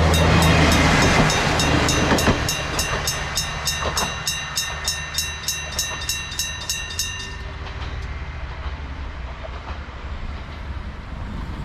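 Electric-bell railway crossing signal, a bell struck rapidly by an electric hammer at about three strikes a second, stopping about seven seconds in. At the start a KiHa 40 diesel railcar's engine hum and passing rush fade away within the first two seconds.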